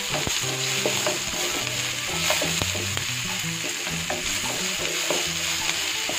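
Chopped onions, tomato, garlic and chillies sizzling steadily in hot oil in a pan while being stirred, with short scraping clicks of the spatula against the pan now and then.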